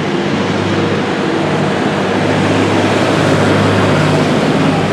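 An engine running steadily, with a constant low hum under an even hiss of street noise.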